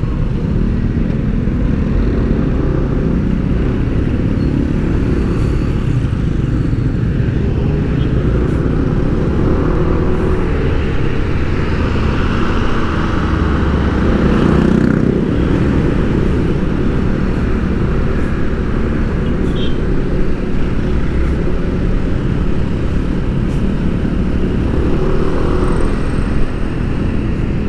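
Steady low rumble of a vehicle moving along a road, with the microphone buffeted throughout.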